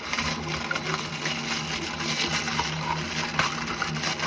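Action figure packaging being handled: a few faint plastic clicks over a steady hum and hiss.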